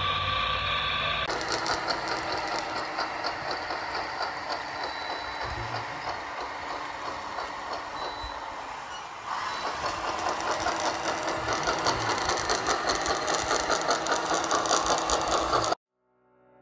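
Radio-controlled model tracked loader (Caterpillar 963B scale model) working: a fast, steady mechanical rattle and whir from its drive and tracks. It grows louder about nine seconds in and cuts off suddenly near the end.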